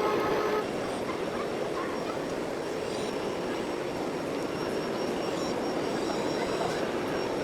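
Radio-controlled model trucks and construction machines running: a steady mechanical whirr, with a motor whine that cuts off shortly after the start.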